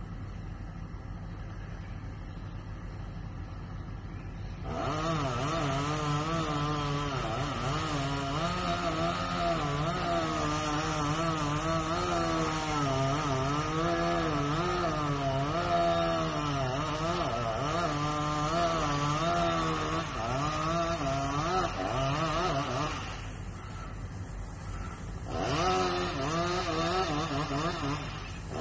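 Chainsaw cutting through a tree trunk, its engine pitch wavering up and down under load. It starts about five seconds in, drops away for a couple of seconds near the end, then cuts again briefly.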